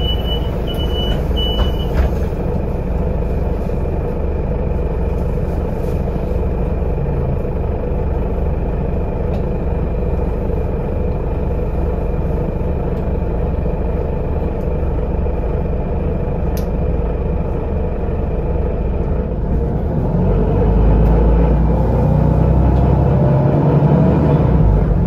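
Inside a Solaris Urbino 18 articulated city bus: the door-warning beeps, about two a second, stop about two seconds in with a sharp knock as the door shuts. The engine then hums steadily at idle. About 20 seconds in it grows louder, with a rising whine, as the bus pulls away.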